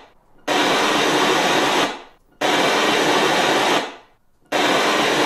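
Test noise played through an Acoustic Elegance TD15M 15-inch woofer in a ported cabinet during a measurement. There are three bursts of hiss, each about one and a half seconds long and spaced about two seconds apart. Each one starts abruptly and dies away briefly in the room.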